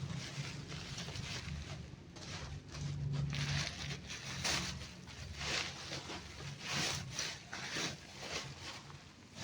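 Handbags and their packaging being handled: irregular rustling and rubbing strokes, over a low steady hum.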